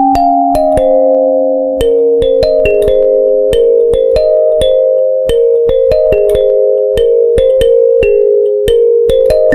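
Background music: a melody of short, evenly paced notes over a held lower note.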